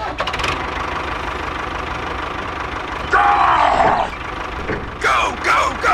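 The small engine of a home-built mini tractor running steadily. High, pitch-bending cries cut in about three seconds in and again near the end.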